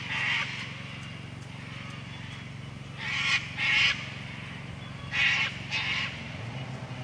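A crow cawing: short, harsh calls in pairs, at the start, about three seconds in, and again about five seconds in.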